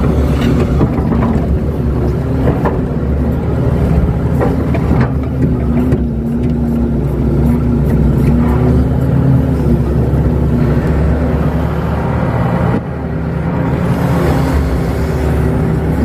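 Kato excavator's diesel engine running under load, heard from inside the cab, its pitch shifting a little as the bucket scrapes and pushes soil. There is a short drop in level about three quarters of the way through.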